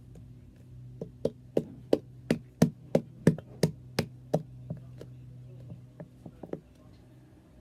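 A rapid series of about a dozen sharp knocks on a hard surface, roughly three a second, followed after a pause by a few lighter taps near the end.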